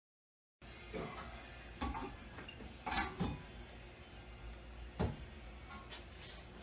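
Several sharp metallic clinks and knocks of hand tools and rear brake parts being handled while a disc brake caliper is taken off, the loudest about three and five seconds in.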